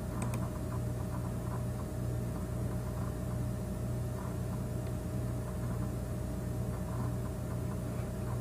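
Steady low hum over a noise floor, with a faint click near the start.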